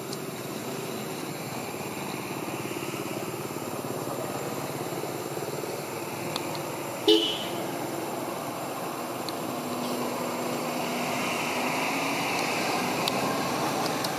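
Steady hum of a small engine from passing traffic, growing a little louder in the second half, with one short, loud sound about seven seconds in.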